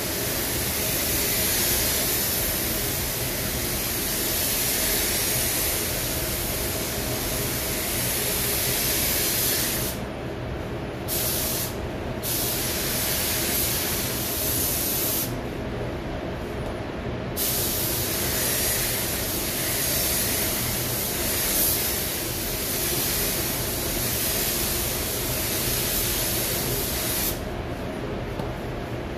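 Gravity-feed spray gun hissing steadily as it sprays paint, with the trigger released a few times: about ten seconds in, briefly twice, for a couple of seconds around the middle, and again near the end. A steady low hum runs underneath.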